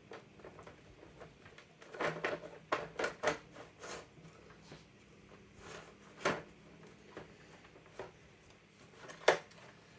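Hard plastic parts of an old desk telephone clicking, tapping and scraping as a screen assembly is slid into place in the housing. There is a cluster of clicks about two to four seconds in, and the sharpest knock comes near the end.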